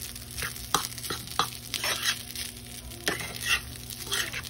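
Fork stirring and scraping egg fried rice around a frying pan: irregular clicks and scrapes of metal on the pan, over a faint sizzle of the rice frying in butter.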